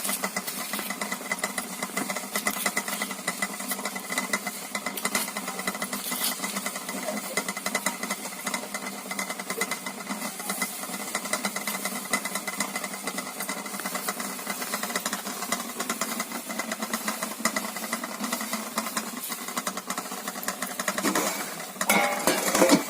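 A machine running steadily with a fast, even rattle, and a louder burst near the end.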